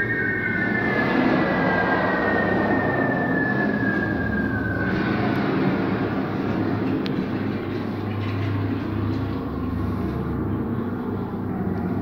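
Recreated air-raid sound effects playing in a brick tunnel shelter: a heavy, continuous rumble of aircraft and bombing. A pair of whistle-like tones slides slowly down and fades out about five seconds in.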